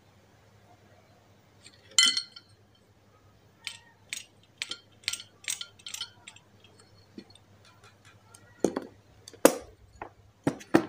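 Metallic clinks and light clicks from an old bicycle dynamo, its wires and an LED lamp module being handled: one loud ringing clink about two seconds in, a quick run of sharp clicks after it, and a few more knocks near the end.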